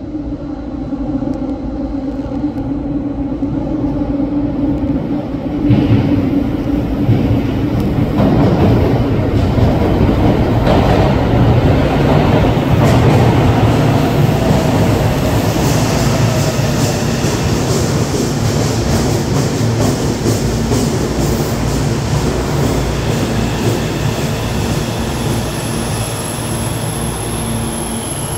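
Meitetsu 300 series electric train pulling into an underground station platform. Its running noise builds, jumps up about six seconds in and stays loud. In the second half a whine slowly falls in pitch as the train slows.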